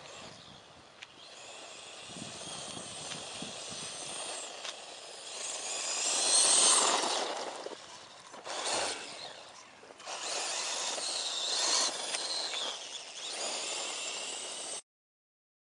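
Radio-controlled quad bike driving over loose gravel: a rough hiss of tyres and stones that swells as it comes close and fades as it moves off, several times, then cuts off suddenly near the end.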